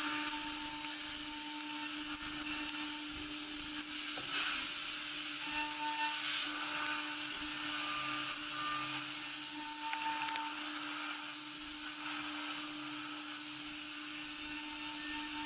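High-speed CNC spindle turning an OSG AERO-O-ETS end mill at 18,000 rpm while finish-milling A7075 aluminium: a steady hum and hiss, with a higher whine that comes and goes as the cutter works along the part, briefly loudest about six seconds in.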